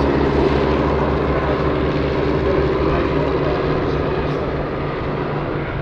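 Westland Scout and Sioux helicopters flying in formation with a single-engine propeller plane: a steady drone of engines and rotor blades that slowly fades as the formation moves away.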